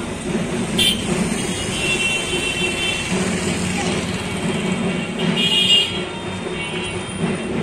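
Outdoor street ambience: a steady low rumble of vehicle traffic with faint voices in the background, broken by two short hissing bursts, about a second in and again near the five-second mark.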